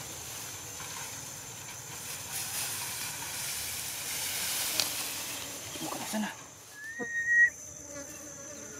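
Tall grass and rice plants rustling as a person wades through them, over a steady high insect drone. About seven seconds in, a short rising whistled note stands out as the loudest sound.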